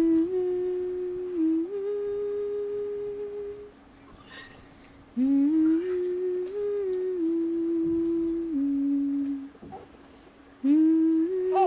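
A person humming a slow tune in three long phrases of held notes that step between a few pitches, each phrase sliding up into its first note, with short pauses between them.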